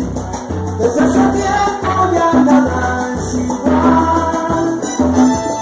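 Salsa song with singing, played loud over a sonidero's sound system, its bass line repeating steadily under the melody.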